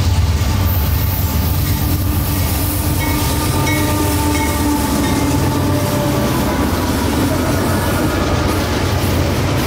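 CSX mixed freight train rolling past close by: a steady heavy rumble of wheels on rail, with faint high squeals from the wheels now and then.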